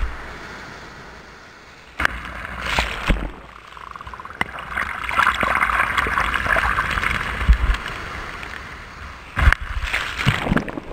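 Ocean surf washing up a sandy beach: a rushing wash of water that swells and falls, with sudden louder surges about two seconds in and again near the end.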